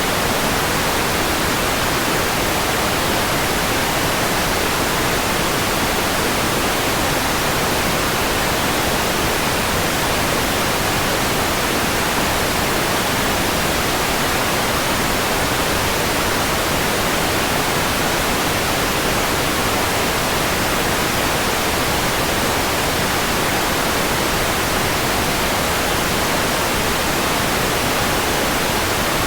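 Steady, unchanging white noise: an even hiss with no rhythm, tones or breaks.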